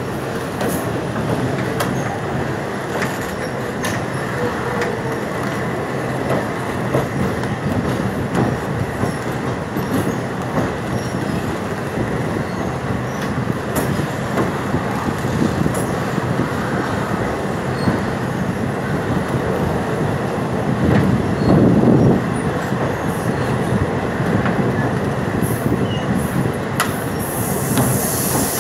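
Railway coach wheels running on the rails across a riveted steel bridge: a steady rumble with scattered clicks, swelling louder about three-quarters of the way through.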